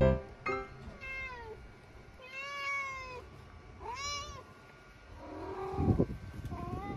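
Domestic cat meowing repeatedly: about five drawn-out meows with rising-and-falling pitch, the loudest one near the end.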